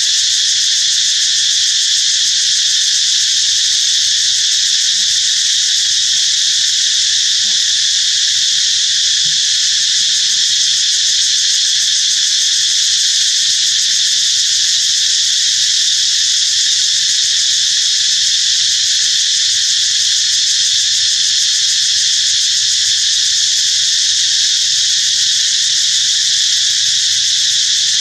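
Dense insect chorus: a loud, steady, high-pitched drone that holds unchanged throughout.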